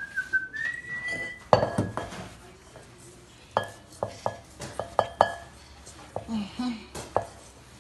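A utensil clinking and tapping against a mixing bowl: a string of sharp ringing taps, with a thin high squeak in the first second or so.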